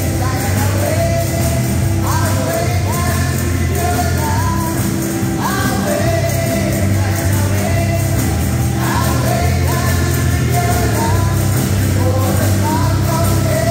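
Church choir singing a gospel song in unison over amplified music with a heavy, steady bass.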